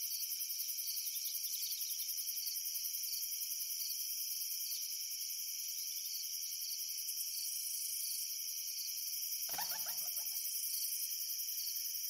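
Chorus of crickets: a steady, dense, high-pitched trill with a fast, even pulse. About ten seconds in, a single brief, lower sound lasts under a second.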